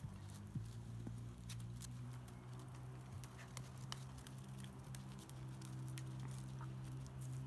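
Airedale terrier puppies' paws pattering, with scattered light clicks of claws on a flagstone path. Under them a steady low hum sets in about half a second in and runs on.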